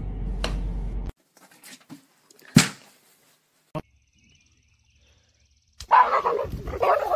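A low rumbling hum that cuts off about a second in, then a few sharp knocks, the loudest about two and a half seconds in. Near the end a dog barks loudly in rough bursts.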